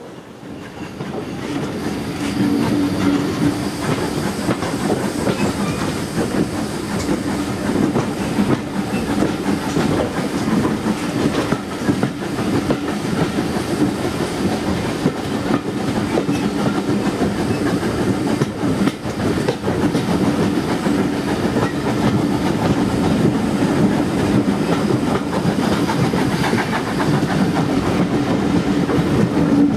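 Steam-hauled passenger train running along the line, heard from an open coach window: a steady rumble of the coaches with wheels clicking over the rail joints. The sound grows louder over the first couple of seconds, then stays steady.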